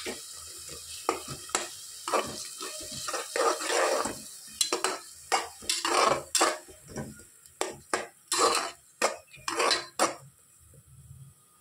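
A spatula stirring tomato paste into a green masala paste frying in oil in a pressure cooker: a run of irregular scrapes and clanks against the pot with a sizzle underneath, stopping shortly before the end.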